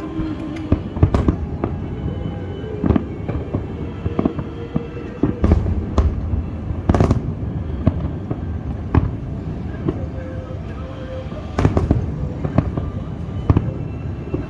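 Fireworks display: aerial shells bursting with irregular sharp bangs, a few close together, over a steady background din.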